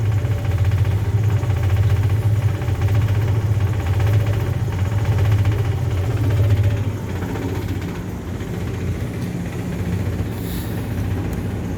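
Rooftop HVAC unit running with a steady low mechanical hum, which drops in level about seven seconds in.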